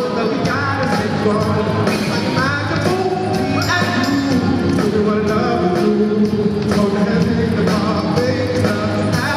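Live band with drum kit, guitar and keyboards playing an upbeat pop song with a steady beat, while a group of singers sings over it through microphones.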